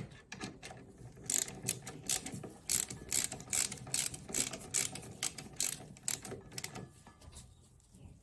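Ratchet wrench clicking in a run of quick strokes as bolts on a brake caliper are tightened. The clicking stops near the end.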